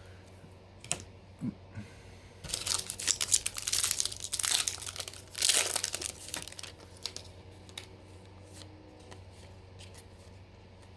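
Plastic wrapper of a Topps baseball card pack being torn and crinkled by hand in two busy spells a few seconds in, then light ticks and rustles of cards being handled.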